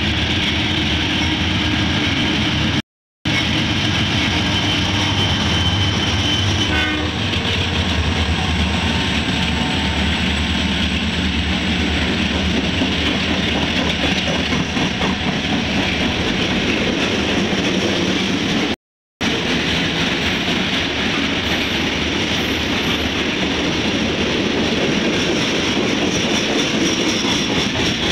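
A freight train's diesel locomotives and a long string of boxcars and tank cars rolling past close by, a steady loud rumble and rail noise. A thin high steady tone sounds for a few seconds early on. The sound cuts out completely twice, each time for a moment.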